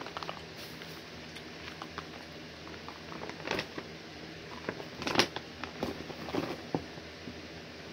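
Scattered rustling and light clicks of things being handled, loudest in two bunches about three and a half and five seconds in.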